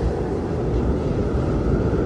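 Blizzard wind blowing in a steady, deep rush.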